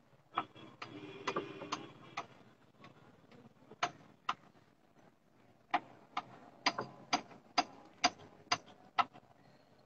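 Irregular sharp clicks and taps, about fifteen of them, spaced unevenly and coming more often in the second half, over a faint low murmur.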